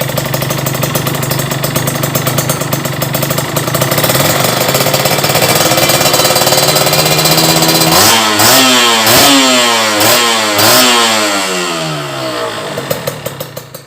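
Kawasaki KRR 150 single-cylinder two-stroke engine breathing through an aftermarket expansion-chamber exhaust. It idles with a pulsing note, holds at higher revs, then is blipped four times in quick succession before dropping back down near the end.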